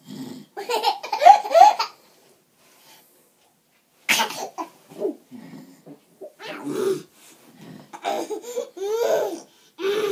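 Baby laughing in repeated bursts, the loudest in the first two seconds, with a sharp cough-like burst about four seconds in.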